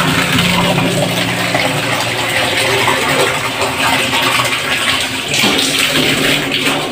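Water sloshing and splashing as a plastic dipper scoops it from the bottom of a water tank, with a steady low hum for the first couple of seconds.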